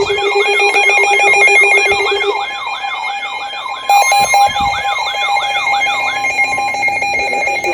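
Several NOAA weather alert radios sounding their alarms together for a severe thunderstorm warning: a repeating siren-like sweep, a long steady tone and beeping tones layered. One tone drops out about two and a half seconds in, a new one joins about four seconds in, and the siren sweep stops about six seconds in.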